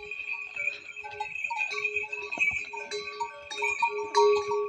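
Bells on passing pack horses ringing irregularly as the animals walk, with the odd knock of hooves.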